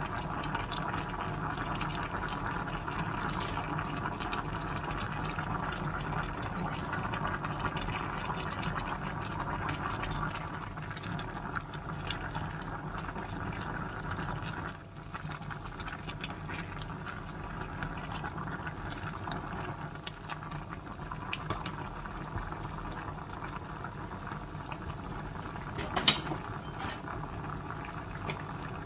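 Pot of pork stew at a rolling boil, a steady bubbling, with a single sharp clink near the end.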